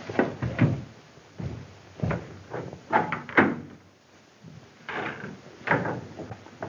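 A scatter of knocks and bumps on wood, about a dozen sharp ones spread unevenly, with a quieter gap in the middle.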